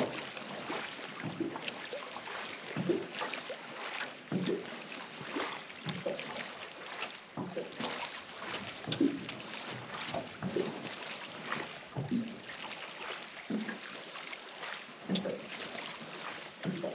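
Small waves lapping and slapping irregularly against the hull of an aluminium jon boat, about once a second, over a steady wash of wind and water.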